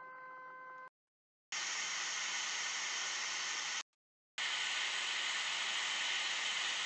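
A faint hum with a few steady tones that cuts out about a second in. After a moment of dead silence, a steady, even hiss of static starts, breaks off abruptly for about half a second, then resumes.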